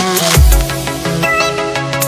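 Electronic dance music with a heavy bass and drums, the bass sliding downward about half a second in.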